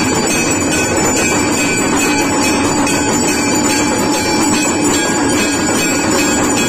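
Temple bells ringing rapidly and without a break during an aarti, a loud, steady metallic din.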